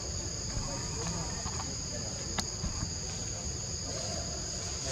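Steady, shrill insect chorus from the forest, two unbroken high tones held at an even level. A single sharp click sounds about two and a half seconds in.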